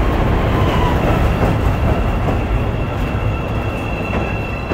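CTA 5000-series 'L' train pulling out along the platform on elevated track: a loud rumble of wheels on rail, with a thin high steady whine growing stronger in the second half, and the noise easing slightly near the end as the train moves away.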